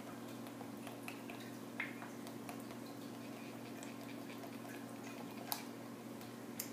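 Faint ticks and light scrapes of a spoon stirring cold-process soap batter in a plastic cup, a handful of small clicks spread out, over a steady low hum.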